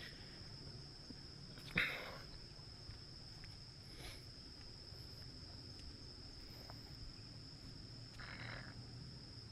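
Steady, high-pitched insect drone of crickets or cicadas, with a short noisy burst about two seconds in and a softer one near the end.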